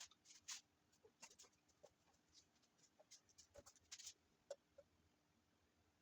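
Near silence with faint, irregular clicks and light taps, a few to several a second, loudest about half a second in and around four seconds in.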